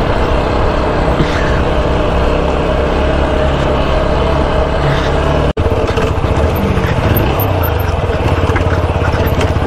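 Motorcycle engine running at low road speed. Its note falls a little after halfway as the bike slows, then settles into an even, low pulsing beat. The sound drops out for an instant just past the middle.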